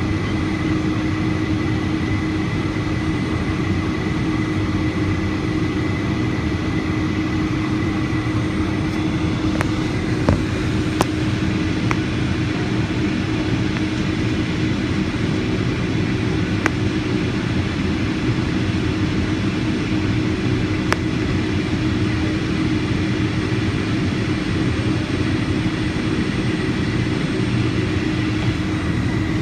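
Steady engine and airflow noise inside the cabin of a Boeing 757-200, with a constant hum and a faint high whine that neither rise nor fall. A few faint sharp clicks sound partway through.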